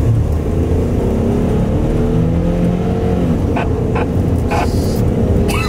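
Car engine accelerating, heard from inside the cabin, its pitch climbing over the first three seconds, over a steady low road rumble.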